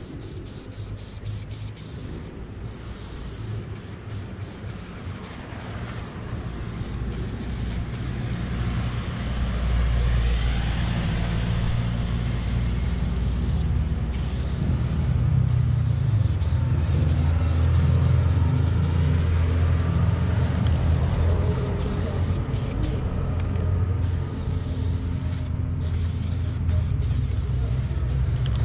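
Aerosol spray-paint can hissing onto a wall in long bursts, with short breaks where the nozzle is let go. A low vehicle-engine rumble builds from about six seconds in and becomes the loudest sound.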